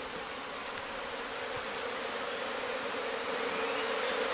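Many honeybees buzzing in flight around an opened hive of swarm bees: a steady, dense hum that grows louder toward the end.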